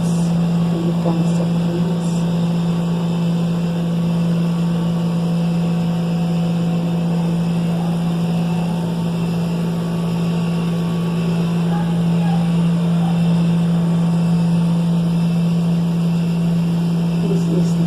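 A loud, steady low hum.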